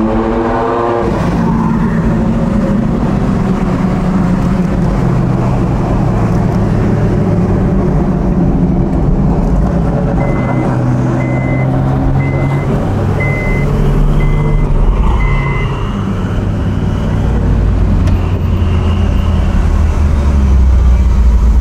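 Car engine revving up briefly at the start, then running steadily at low revs with a deep rumble that grows near the end. In the middle there are six short high electronic beeps about a second apart.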